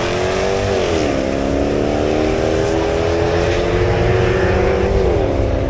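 Car engine accelerating hard through the gears: the pitch climbs steadily and falls sharply at a gear change about a second in, climbs again, and drops at another shift near the end.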